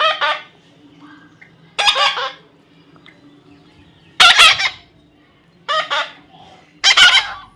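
A parrot calling: five short, loud calls, each about half a second long, spaced one to two seconds apart.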